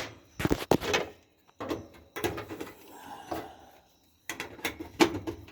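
A series of sharp clicks and knocks of parts being handled, as the Kenmore dryer's drum light bulb and its cover are fitted back in.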